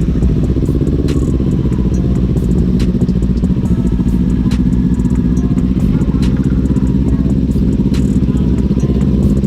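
Kawasaki Ninja 400's parallel-twin engine running while under way at fairly steady revs.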